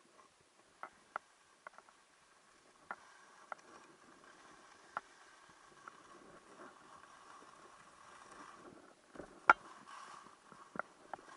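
Skis sliding over packed snow, a faint scraping hiss that grows louder from about three seconds in, with scattered sharp clicks and knocks, the loudest toward the end.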